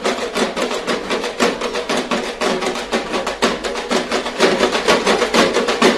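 Fast, steady drumming: a quick run of even beats over a held ringing tone.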